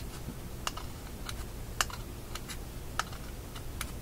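A series of sharp, irregular clicks from a magnet snapping and tapping against the metal pole pieces of a Philco shadow tuning meter as it is re-magnetized. The loudest click comes a little before two seconds in.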